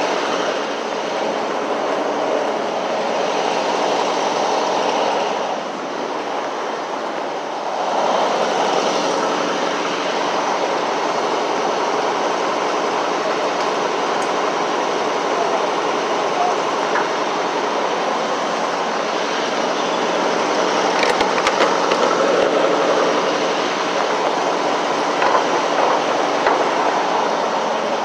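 Steady mechanical drone of an idling diesel truck engine at a fuel island, a fixed hum over a rushing noise, dipping briefly about six seconds in.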